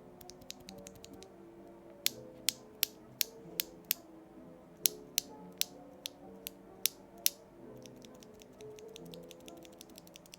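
Sharp plastic clicks from the keys of a Royal Kludge R87 mechanical keyboard: faint quick clicking, then about thirteen loud separate clicks, roughly three a second in two runs, then fainter quick clicking again. Soft background music plays underneath.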